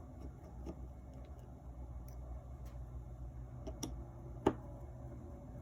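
Faint clicks and taps of small RC damper parts being handled by hand, with one sharper click about four and a half seconds in, over a low steady hum.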